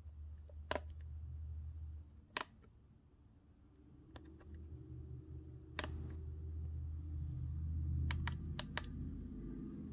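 Scattered sharp clicks, about nine in all, with a quick run of four near the end, over a low hum that fades out and back in.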